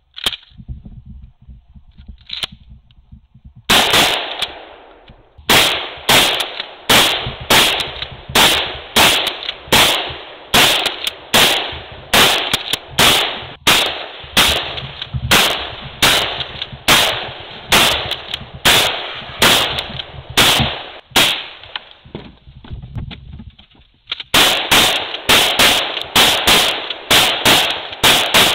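Rapid fire from a DP-12 12-gauge double-barrel pump-action shotgun, about two loud shots a second. A few quieter clicks of handling come before the first shot. The firing pauses about 21 seconds in and resumes about three seconds later.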